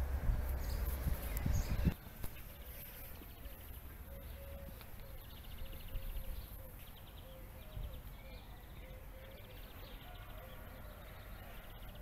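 A low rumble for about two seconds that cuts off abruptly. Then faint outdoor ambience: a thin, wavering hum that comes and goes, and a few short, rapid chirping trills from small birds.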